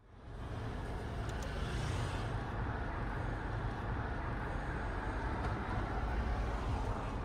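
Steady car-cabin noise while driving: a low, even rumble of engine and road noise heard from inside the car, fading in at the very start.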